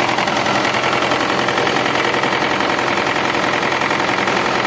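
DT-75 crawler tractor's turbocharged SMD diesel engine idling steadily, breathing out through a newly fitted silencer.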